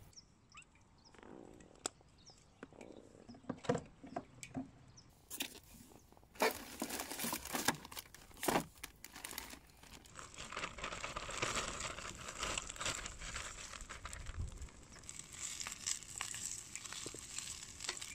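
Plastic food packaging crinkling, with clicks and knocks, as items are taken out of a cooler box. About halfway through it gives way to a steady crackling sizzle of cabbage frying in a pan.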